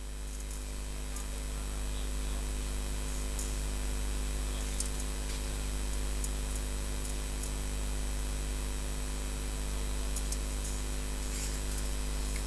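Steady electrical mains hum, a low buzz with evenly spaced overtones, with a few faint ticks on top.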